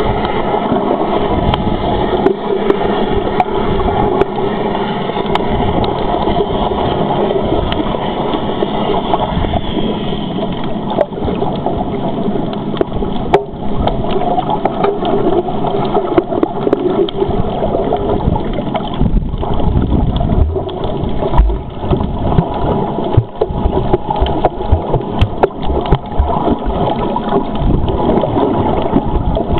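Muffled underwater water noise picked up by a camera below the surface: a steady rushing wash, with low thumps and knocks that come more often from about two-thirds of the way in.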